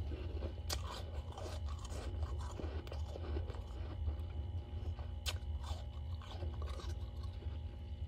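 Freezer frost being crunched and chewed close to the microphone: a dense run of crackling crunches with a few sharper snaps, over a steady low hum.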